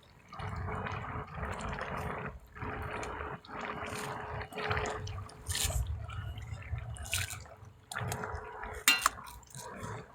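Water splashing and pouring in a run of short bursts, each about a second long with brief breaks between them. A couple of sharp metallic clinks come near the end.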